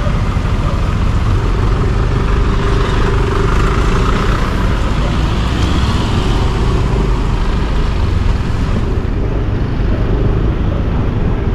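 Steady road traffic noise with a heavy low rumble, typical of wind on the microphone while moving along the street.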